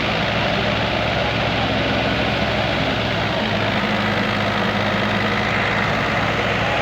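Engine-driven wheat thresher running steadily: a constant engine hum under a dense, even machine noise.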